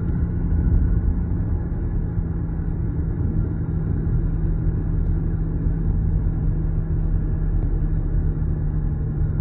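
A steady low mechanical drone with rumble, one fixed low tone held throughout, like a running engine or motor.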